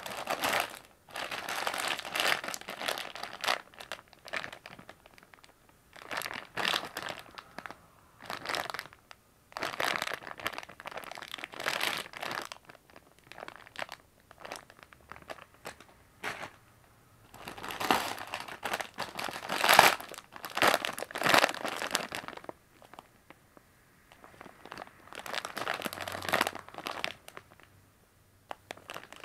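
Plastic snack bags crinkling as they are handled, in repeated bursts a second or two long with short pauses between.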